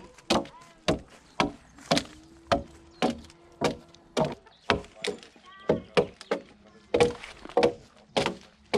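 Broad axe hewing a squared timber beam by hand: sharp chopping strokes into the wood, about two a second and evenly paced.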